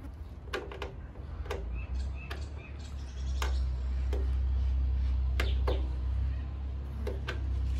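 Screwdriver working the screw of a motorcycle's plastic tail-light lens: about a dozen sharp clicks and ticks at uneven intervals. Underneath, a low rumble swells from about two seconds in and is the loudest sound.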